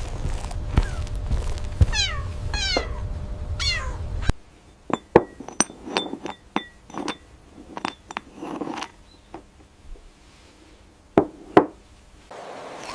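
High, short mewing calls, each falling in pitch and repeating about once a second, over a low rumble. After about four seconds they give way to a quieter scatter of sharp small taps and clicks, some with a brief ring.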